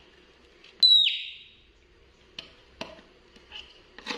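A pet monkey gives one short, high squeal that drops quickly in pitch, about a second in, followed by a few light knocks.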